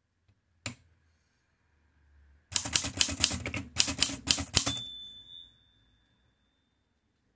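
1943 Erika 5 Tab portable typewriter typing: a single click, then a quick run of typebar strikes on the paper as a short word is typed. The run ends with a bell ding that rings on and fades over about a second.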